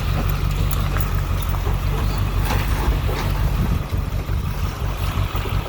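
Ford Excursion driving slowly under load in low range while towing, its engine running as a steady low rumble. A few knocks and rattles come about halfway through.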